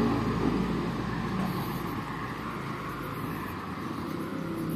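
A car driving away down the street, its engine sound fading steadily.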